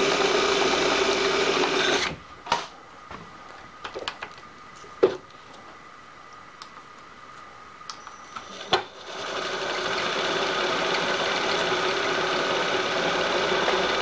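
Milling machine spindle running with a steady whine, then stopping about two seconds in. A few light clicks and knocks follow, and at about nine seconds the spindle starts again and runs on steadily without cutting.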